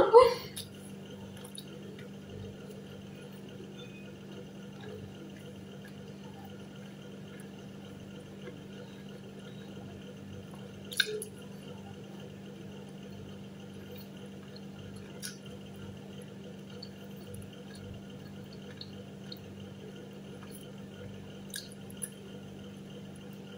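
Steady low hum of room tone with a few faint, short clicks, the sharpest about eleven seconds in, from pizza being picked apart by hand and eaten.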